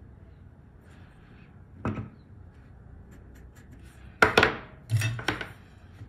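Small hand tools knocking and clinking on a workbench: one sharp knock just before two seconds in, then three more, the loudest just after four seconds and two close together about a second later.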